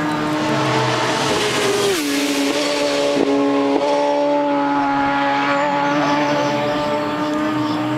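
Superbike racing past at full speed, its engine a high steady howl whose pitch drops sharply about two seconds in as it passes, then holding on as it pulls away up the road.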